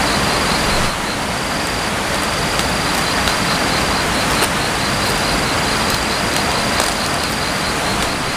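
Steady rushing outdoor noise with a high, pulsing insect trill that breaks off and resumes several times, and faint crackles of fresh banana leaves being rolled up by hand.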